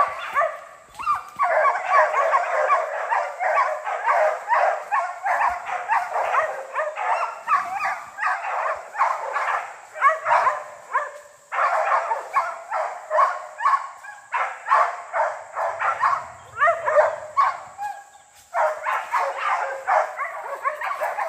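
Hunting dogs barking rapidly and without let-up, several barks a second, broken only by a few short pauses: tree barking, the sign that the dogs are holding a bear up a tree.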